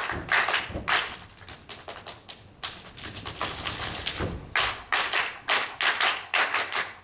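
Percussion ensemble playing a rhythm of sharp taps and thumps, sparser in the middle and denser near the end.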